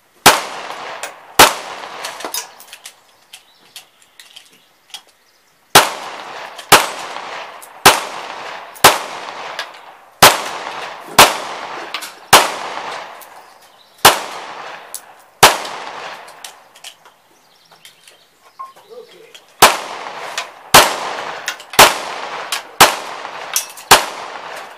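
Pistol shots fired one at a time, about a second apart, each sharp crack followed by a short echoing tail: three shots, a pause, a run of about nine, then after another pause five more.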